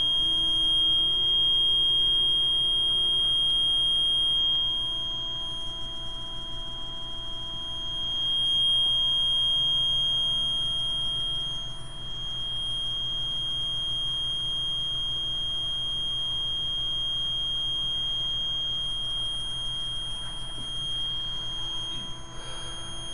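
Nanoperm transformer cores of a Royer-oscillator (Joule thief) LED driver giving off a steady high-pitched whine, the circuit under load at 14 volts input and about 2 amps into a 50-watt LED.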